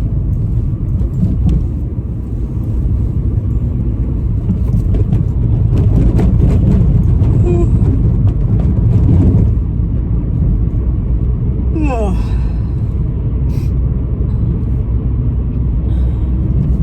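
Steady low rumble of road and engine noise inside a moving car's cabin, a little louder for a few seconds in the middle, with a brief rising sound about twelve seconds in.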